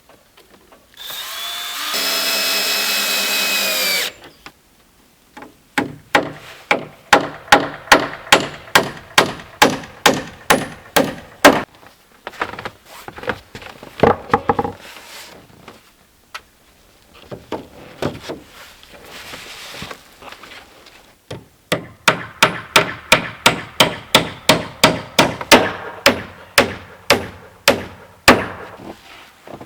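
Cordless drill-driver running for about three seconds as battens are fixed to a wall, followed by two long runs of rapid, regular hammer blows on wood, about three a second.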